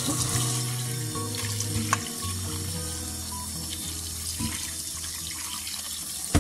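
Tap water running into a stainless steel bowl of mushrooms as they are rinsed by hand, with a sharp click about two seconds in.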